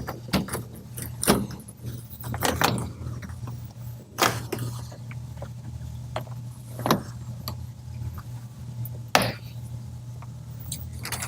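Rear window glass of a 1964 Ford pickup being worked free of its cut rubber weatherstrip and into the cab: scattered knocks, clicks and rubbing, over a steady low hum.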